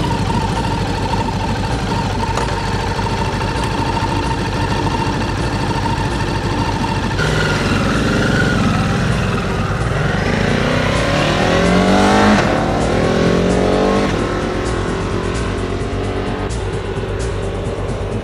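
A vehicle engine accelerating, its pitch climbing in several rising sweeps to a peak about twelve seconds in, then easing off, with background music.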